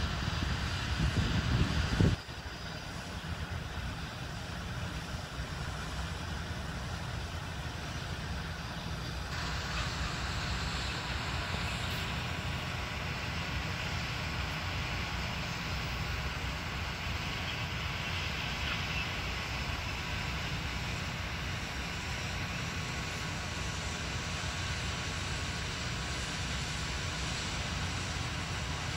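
Steady low rumble of wind on the microphone over the distant running of a John Deere tractor. It is louder for the first two seconds, then drops suddenly and stays even.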